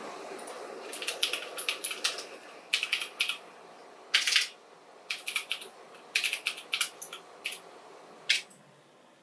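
Irregular sharp crackles and clicks, a few at a time, from a helmet and its packaging being handled during unboxing.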